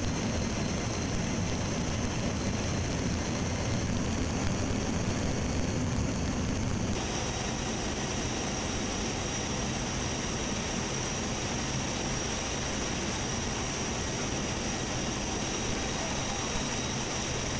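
Steady roar of a C-17 Globemaster's turbofan engines and the rush of air past the open paratroop door, heard from inside the cargo hold. The sound changes abruptly about seven seconds in, and a thin steady high whine comes up.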